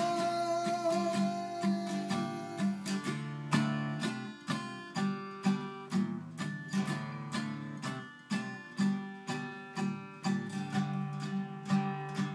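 Acoustic guitar strummed in an even rhythm as an instrumental break in a song, with a long held note fading out over the first two or three seconds.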